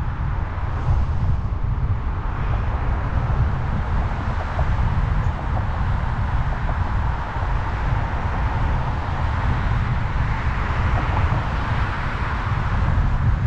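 Wind rumbling on the microphone of a moving bicycle, with a steady hiss of tyres rolling on the trail.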